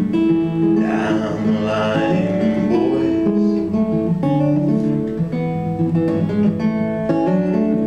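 Acoustic guitar strummed and picked in a folk song's instrumental break between verses, the notes running on without pause.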